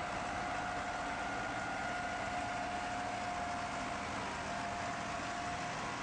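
Farm tractor engines running at low speed as tractors towing wagons drive slowly past, with a steady high whine over the engine noise.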